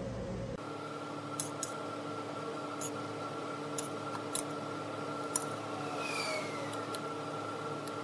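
A steady machine hum holding several fixed pitches, with a few light, sharp clicks scattered over it.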